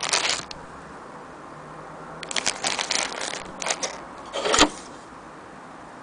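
Handling noise from a hand on the wooden board of a sewing machine's case: short bouts of scraping and rubbing, with one sharp knock a little past the middle.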